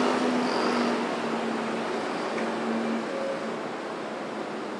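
Traffic on a major city road: a steady rush of passing cars, with one vehicle's low hum fading away over the first three seconds.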